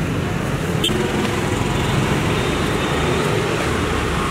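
Steady road traffic noise, with a single sharp click about a second in.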